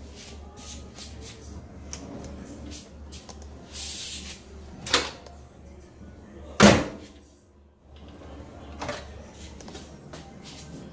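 Kitchen cabinet doors and pull-out units being opened and shut, with small clicks throughout and several sharp knocks. The loudest knock comes a little past halfway.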